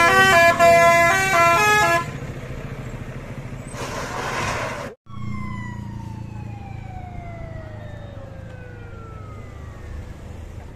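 A coach's multi-tone musical air horn (an Indonesian 'telolet' horn) playing a quick stepping tune for about the first two seconds over the bus's engine. A burst of hiss follows around four seconds in, then, after a short break, a slow falling whine over the steady run of a bus engine.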